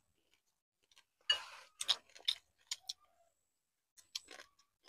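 Wooden chopsticks scraping and clicking against ceramic rice bowls as rice is eaten: a short scrape about a second in, then a scatter of faint, irregular clicks.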